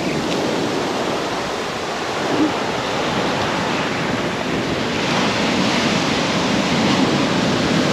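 Ocean surf breaking and washing up a sandy beach: a steady rush of waves and foam.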